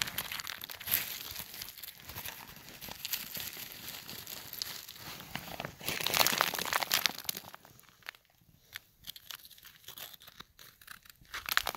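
Dense crinkling, crunching rustle made of many small clicks, loudest about six seconds in, then thinning to scattered clicks after about eight seconds.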